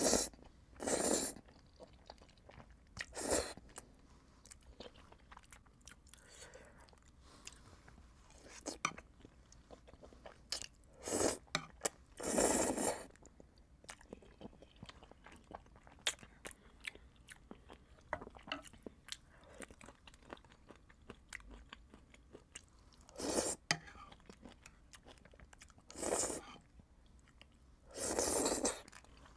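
Close-miked eating of Buldak spicy instant noodles: steady wet chewing with small crunches, broken by several loud noodle slurps up to about a second long.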